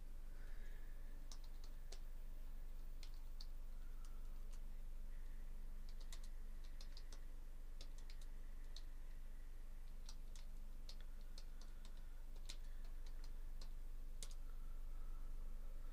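Irregular light clicks and ticks, some in quick clusters of three or four, over a faint steady electrical hum.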